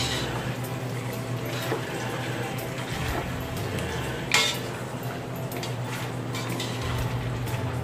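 A metal slotted turner and a wooden spatula scraping and clinking against an aluminium wok while stirring a thick beef stew, with one sharper clank about four seconds in. A steady low hum runs underneath.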